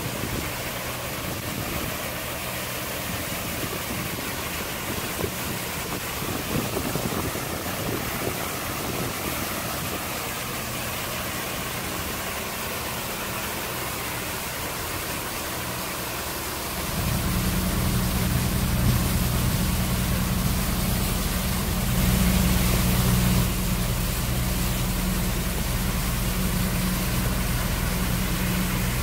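Water jets from a fireboat's spray nozzles hissing and splashing onto the lake surface. About halfway through, a low steady boat engine or pump drone starts up and runs on underneath the spray, briefly louder a few seconds later.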